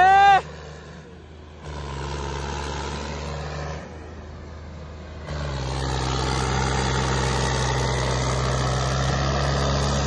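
Two John Deere tractors' diesel engines running hard under load, chained together pulling against each other, a steady low drone. It gets louder about a second and a half in and again about five seconds in, where its pitch drops slightly as the engines lug. A brief shout at the very start.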